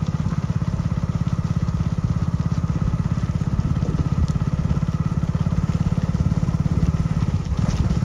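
Motorcycle engine running steadily at low speed, a fast even putter.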